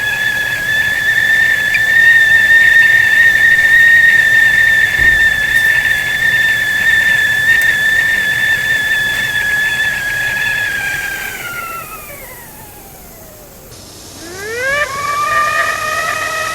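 Stovetop whistling kettle sounding a steady, loud whistle, which slides down in pitch and fades away about eleven seconds in. A couple of seconds later a whistle starts up again, rising quickly in pitch before settling.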